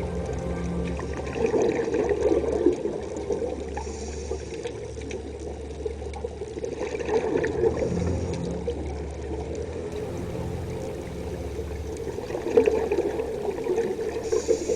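Water gurgling and sloshing, swelling every few seconds.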